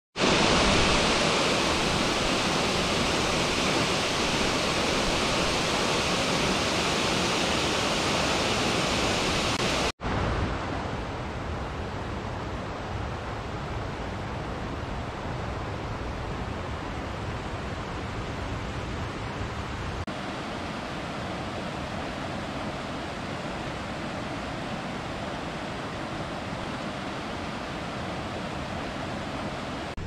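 Steady rushing of water: a loud, bright rush of a waterfall pouring into a pool, breaking off briefly about ten seconds in, then a softer, steady river rush that shifts slightly in tone about twenty seconds in.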